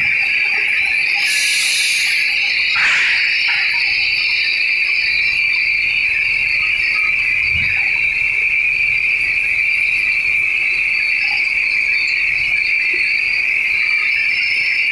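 Steady high-pitched whine from running candy-processing machinery, with a brief hiss about one and a half seconds in and a short knock near three seconds.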